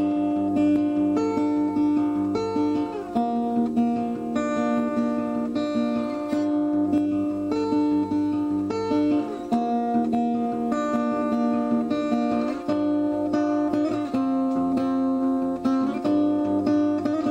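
Background music: strummed and plucked acoustic guitar playing a steady tune.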